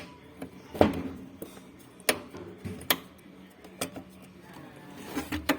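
Irregular sharp clicks and knocks, about half a dozen over several seconds: parts and tools being handled during a washing machine repair.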